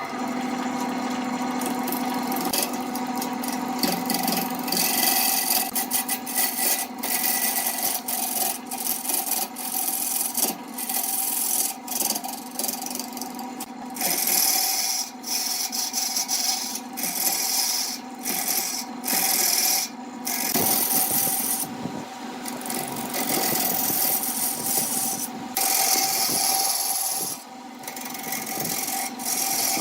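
Wood lathe running with a steady motor hum while a turning tool cuts into the spinning wood, the scraping, hissing cut coming and going in short passes.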